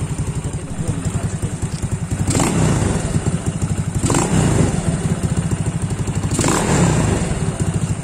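Yamaha Nouvo Z scooter's single-cylinder four-stroke engine idling through an ORBR V2 'chicken pipe' aftermarket exhaust with a quick, steady putter. The throttle is blipped three times, a couple of seconds apart, each a short rev that drops straight back to idle.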